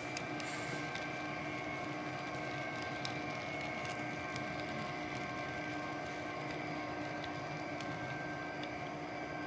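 A steady mechanical hum with several held tones, unchanged as the last HO-scale coal hoppers roll past and clear the track. Scattered light clicks come from the model wheels over rail joints.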